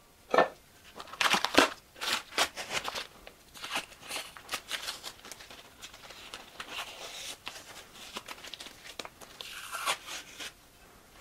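Masking tape being peeled off primed aluminium gearbox parts: a run of short, irregular rips with the tape crinkling as it comes away.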